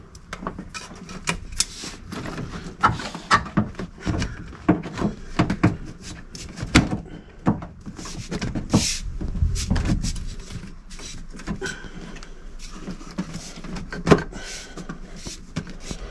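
Irregular clicks, knocks and rattles of hand tools on the cold air intake's fittings as its hose clamps are snugged up.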